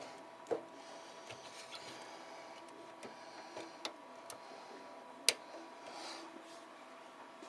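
A few sharp clicks and light taps over a faint steady hum, the loudest click a little over five seconds in.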